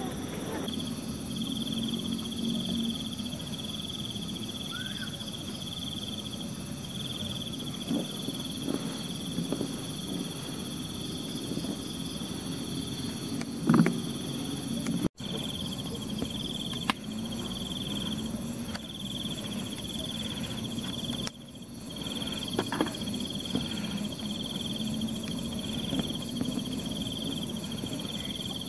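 Night insects, crickets among them, chirping in a steady pulsing chorus at several pitches, with a few soft knocks and one louder thump about halfway through.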